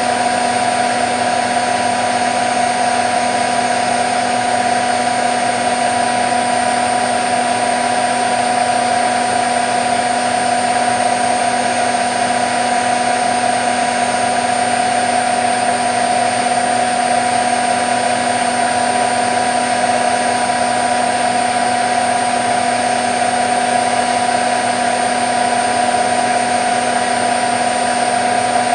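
Candy Nova CN146 washing machine on its final fast spin of a cottons cycle at up to 1400 rpm: a loud, steady motor whine over the rushing hum of the drum, holding the same speed throughout.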